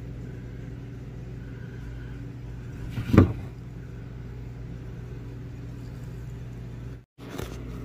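A steady low hum with one short, louder sound about three seconds in; the sound cuts out briefly near the end.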